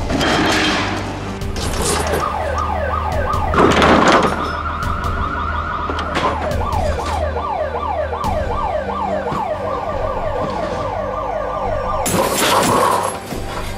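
An emergency siren wailing in rapid repeating sweeps, yelp style, with a loud thud about four seconds in and another loud burst near the end.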